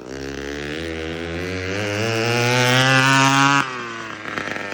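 Straight-piped scooter engine, muffler removed, revving up with its pitch climbing steadily for about three and a half seconds, then the throttle snaps shut and it drops back to a low, uneven running.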